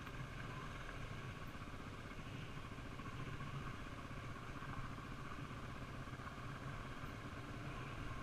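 Honda XR400 dirt bike's single-cylinder four-stroke engine running steadily under light, even throttle while riding a dirt trail, heard from the rider's helmet.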